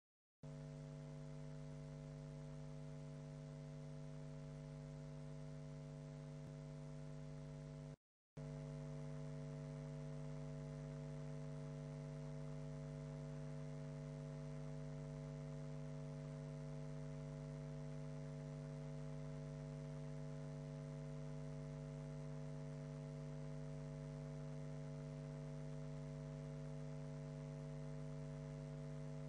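Steady electrical mains hum, a low buzz made of several constant tones, with no speech over it. It cuts out for a moment about eight seconds in.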